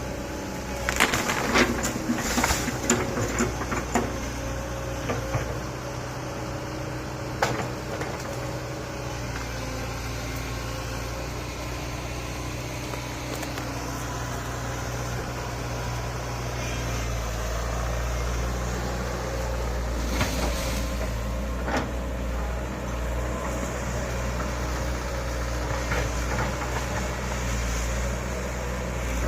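Excavator diesel engine running steadily, with bursts of clanking and knocking from the machine's metal parts in the first few seconds, once around a quarter of the way in, and again about two-thirds through.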